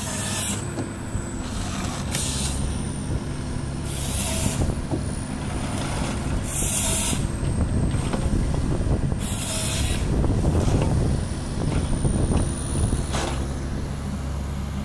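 Komatsu tracked forestry harvester running under load, its diesel engine droning steadily while the harvester head processes a log. Six short hissing bursts come about every two to three seconds as the head's saw cuts through the log, and the engine swells louder around two-thirds of the way through.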